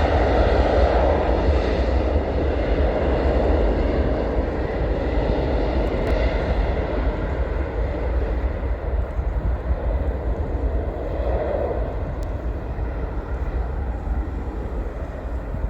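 Jet aircraft engines during takeoff, a steady rumble that slowly fades as the aircraft climbs away.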